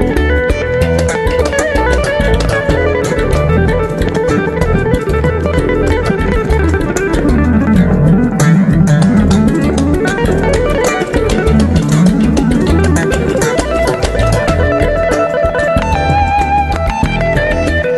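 Live fusion band playing: electric guitar and electric bass run fast lines over the clicking strokes of South Indian hand percussion. Pitch glides sweep down and back up about halfway through.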